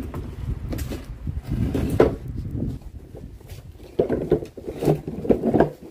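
Hard plastic wheels of a Little Tikes ride-on toy quad rolling over paving tiles: a low, uneven rumble with irregular knocks and clatter as the wheels cross the joints.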